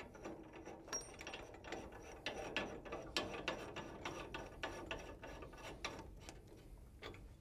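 Hand work on the RRS-2 remote racking cart's adjustment and mounting hardware: a run of irregular mechanical clicks and clatter that stops shortly before the end.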